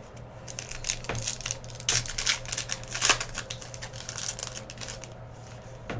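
Baseball trading cards and their pack wrapping being handled during a box break: a quick run of crinkles and clicks, loudest around two and three seconds in, over a steady low hum.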